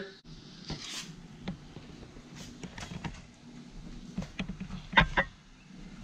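Scattered light clicks and knocks over a faint low hum, with a sharp double click about five seconds in.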